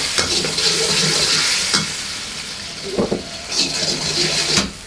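Cornstarch-thickened stir-fry sauce with garlic and ginger bubbling and sizzling in a wok over low heat, cooking until it turns transparent. A metal wok spatula stirs and scrapes against the wok a few times.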